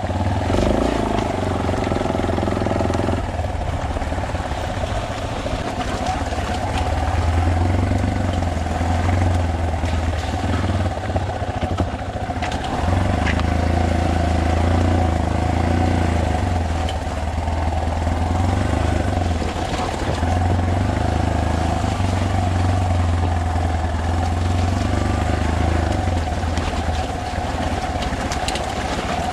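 Trail motorcycle engine running steadily while being ridden, its low note swelling and easing with the throttle, under a constant rushing noise.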